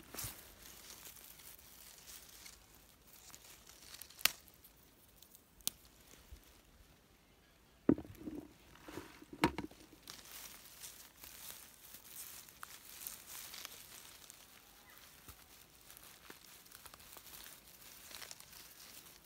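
Grass, moss and low plants rustling and crackling as a hand parts the vegetation, with a few sharp knocks in the first half.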